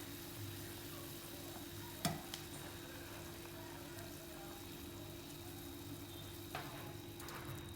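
Food cooking in a pot or pan on the stove: a steady sizzling hiss, with two short clicks, one about two seconds in and one near the end.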